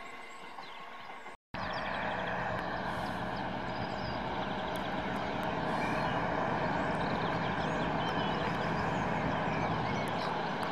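Diesel locomotive of a freight train approaching along the line, its engine running steadily and growing a little louder, with birds chirping. The engine sound begins after a brief gap about a second and a half in.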